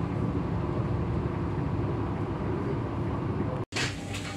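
Electric regional train running at speed, heard from inside the passenger car: a steady rolling rumble with a low hum. It cuts off suddenly near the end, where quieter station sound takes over.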